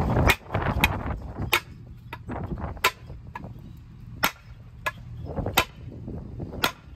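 Hammer blows on a bent lower control arm as it is beaten straight: a string of about nine sharp metallic strikes, one roughly every half second to second.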